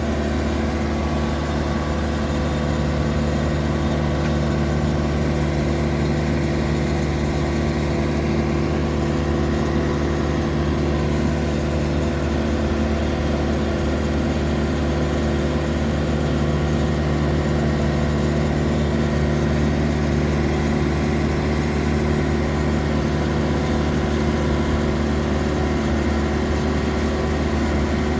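Engine of a 60-horsepower cable-pulling machine running steadily at constant speed.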